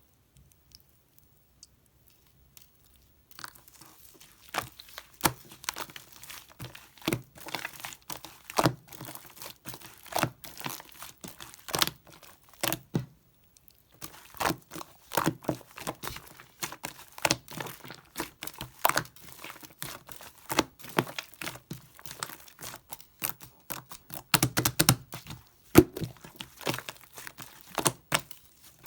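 Yellow-and-white 'egg yolk' slime being squeezed, poked and stretched by hand, giving dense sticky crackling and popping clicks. It starts after a few seconds of near silence and pauses briefly about halfway.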